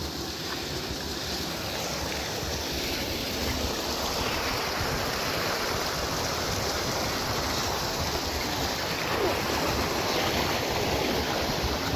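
Steady rushing of water from a small river waterfall, an even wash of noise.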